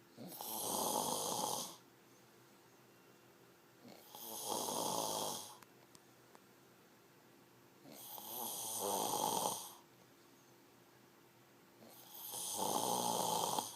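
A person snoring loudly: four snores, one about every four seconds, each lasting about a second and a half.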